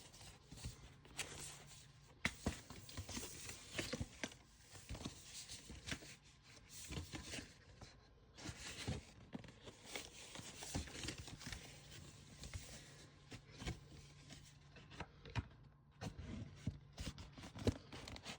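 Blu-ray cases and their art cards being handled: faint rustling and scraping with many small irregular clicks and knocks.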